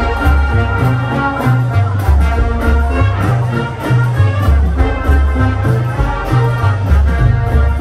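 High school marching band playing loudly: brass over a heavy bass line that steps from note to note about twice a second, with a steady drum beat.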